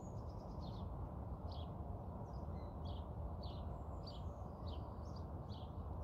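A small bird chirping: short, high chirps repeated every second or less, over a steady low background rumble.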